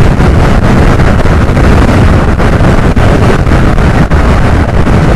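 Heavy wind rush and buffeting on the microphone of a Suzuki scooter riding at about 85–90 km/h, with road and engine noise underneath.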